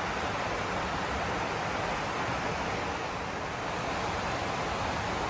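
Light rain falling steadily, a continuous even hiss of many drops with no single strike standing out.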